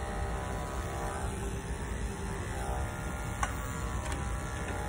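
Corded electric dog-grooming clipper running with a steady hum as it trims a puppy's coat, with a couple of light clicks about three and four seconds in.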